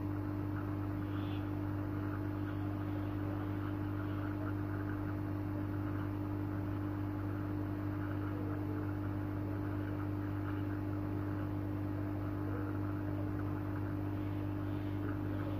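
Hot air gun blowing steadily over a phone motherboard's CPU chip: a constant fan hum with an airflow hiss while the chip's solder is heated and reflowed so its loose contact points reseat.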